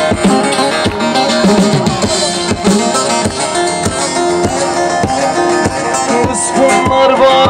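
Folk dance music: a plucked string instrument playing a melody over a steady drum beat.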